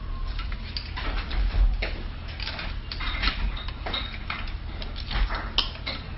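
Metal spoon clicking and scraping against the metal cap of a glass bottle as it is pried at to open it: a string of small ticks and taps, a few sharper clicks among them.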